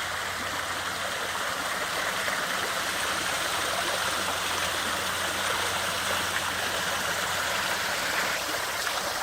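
Water pouring steadily over an artificial waterfall, a continuous rushing splash, with a faint steady low hum underneath.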